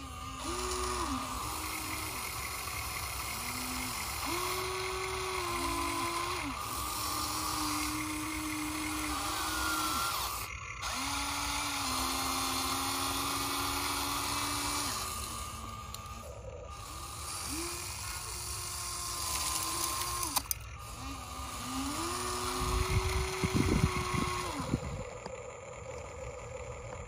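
Huina 1593 RC excavator's electric motors whining in short runs, the pitch stepping up and down as the boom, arm, bucket and swing are worked one after another. About 23 seconds in, the metal bucket scrapes and crunches into the gravel.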